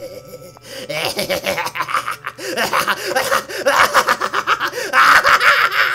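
A man's voice laughing in a long, rapid cackle that builds louder toward the end: a Shinigami character's gleeful laugh.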